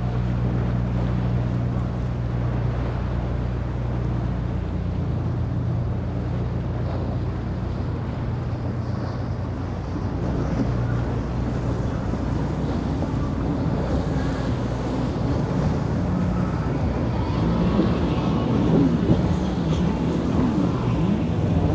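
Motorboat engines running with a steady low drone, mixed with wind buffeting the microphone and the rush of boat wash and waves. The sound gets busier and a little louder near the end.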